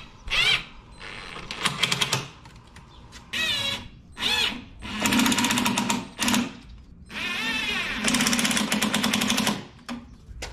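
Cordless impact driver running in repeated bursts, with a rapid hammering rattle and a motor whine that rises and falls. It is driving screws into a pine 2x4 frame: several short bursts, then two longer runs about halfway through and again near the end.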